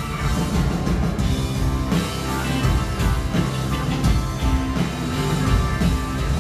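Electric band playing rock music: drum kit, electric guitars, bass guitar and keyboard.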